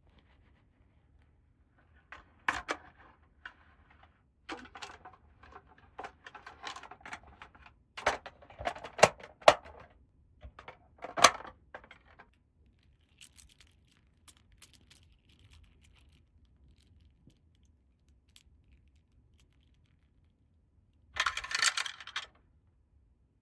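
Small plastic toy pieces and packaging being handled: scattered clicks, taps and short rattles, with a few sharp clicks around the middle and a brief burst of rustling near the end.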